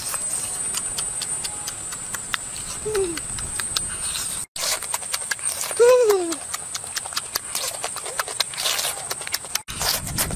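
A young monkey squealing: two short calls that fall in pitch, a faint one about three seconds in and a louder one near six seconds, over a patter of small clicks and a steady high whine.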